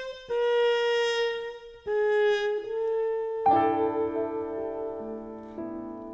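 Background music: a slow melody of single held notes, then about three and a half seconds in a held chord that slowly fades.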